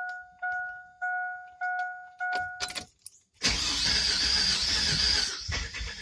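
The truck's warning chime dings about five times, roughly one every 0.6 s, and stops a little before the middle as the key is turned. Then the starter cranks the 1999 Silverado's 4.3-litre V6, loud at first and then rougher and pulsing; the engine turns over without catching.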